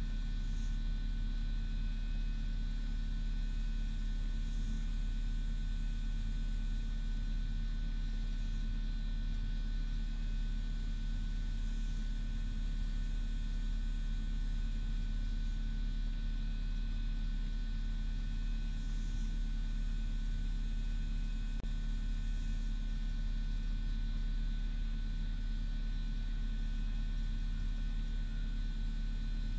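Steady low electrical hum, with fainter thin steady tones higher up; no distinct eating or gnawing sounds stand out.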